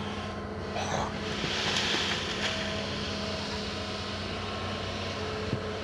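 Excavator engine running steadily with an even hum, while a louder hiss swells briefly about two seconds in.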